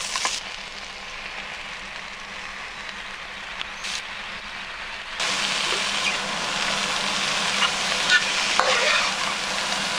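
Raw prawns and squid sizzling in hot oil in a frying pan with fried shiitake mushroom slices, stirred with a spatula. The sizzle is a steady hiss that gets clearly louder about five seconds in.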